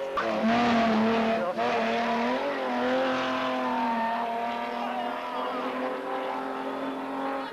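Race car engine running hard at high, fairly steady revs, with a short break about a second and a half in.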